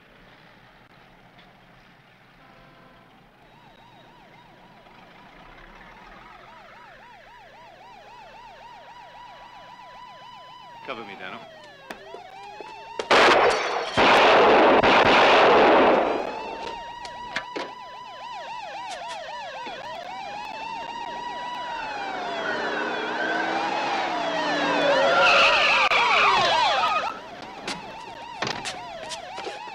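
Several police car sirens wail, rising and falling and overlapping, growing louder as they approach. About halfway through come a few sharp bangs and a loud burst of noise lasting about two seconds as a handgun is fired.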